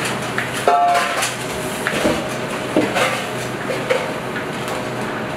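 Restaurant kitchen clatter: metal pans, trays and utensils clinking and knocking, with one ringing metal clank about a second in, over a steady hum from kitchen equipment.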